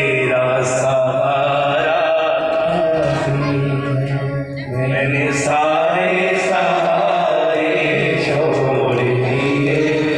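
Amplified Hindu devotional singing: a voice holding long, wavering chant-like notes over a steady keyboard accompaniment, heard through the PA loudspeakers.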